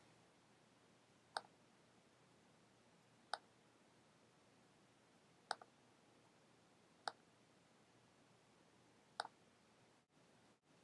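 Computer mouse clicking: five single clicks, spaced about one and a half to two seconds apart, with near silence between them.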